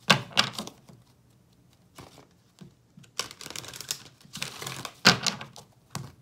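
A deck of romance angel oracle cards being shuffled by hand: the cards clatter and slap together in short, irregular bursts, loudest right at the start and again about five seconds in.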